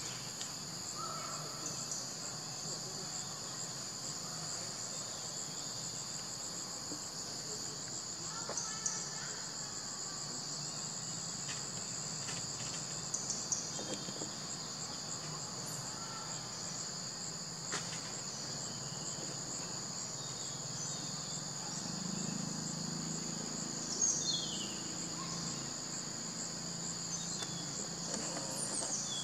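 A steady, shrill chorus of insects in tropical forest, held without a break, with a few faint clicks here and there.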